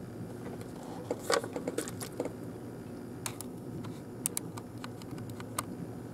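Small hard clicks and light clinks of communion trays and cups being handled as the elements are passed: a quick cluster about a second in, then single scattered ticks, over a steady low room hum.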